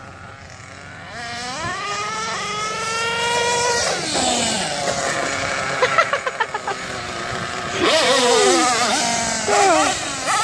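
Nitro RC truck's small two-stroke glow engine revving up into a high whine, holding, then dropping back. Midway comes a quick string of throttle blips, and near the end a couple more short rises and falls in pitch.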